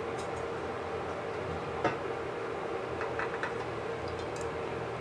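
A few light taps and clicks of a spatula against a saucepan and glass bowl as thick tomato sauce is scraped across, one about two seconds in and several fainter ones later, over a low steady hum.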